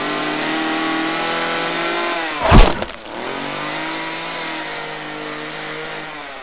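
Chainsaw engine sound effect running steadily, broken about two and a half seconds in by one loud sharp crash; the engine then runs on more quietly and fades away near the end.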